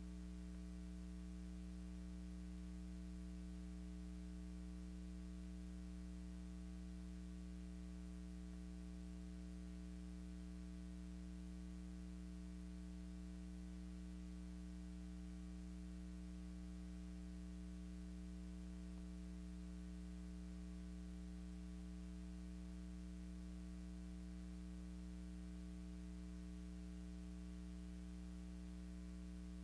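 Steady electrical mains hum with a faint hiss and no other sound: the empty soundtrack of a silent film transfer.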